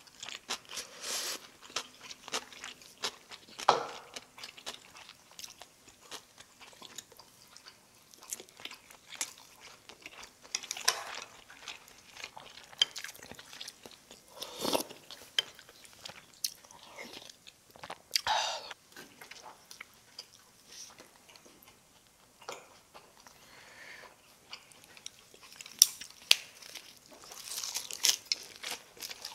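Close-up chewing and crunching of a Korean home-cooked meal, with scattered sharp clicks of chopsticks and a spoon against bowls.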